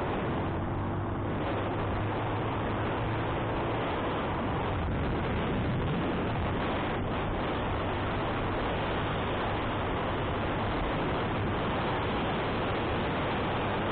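Wind rushing over the microphone of a riding motorcycle, a steady hiss, with the motorcycle engine humming low underneath; the engine hum is clearest in the first few seconds.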